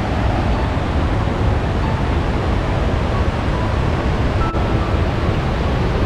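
Steady rush of Vazhachal Falls' cascades on the Chalakudy River, an even, unbroken noise.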